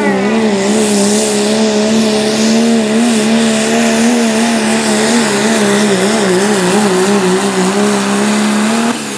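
Dodge Ram pulling truck's diesel engine held wide open under the heavy load of the pulling sled: a steady high-revving drone that wavers slightly, then drops off sharply about nine seconds in.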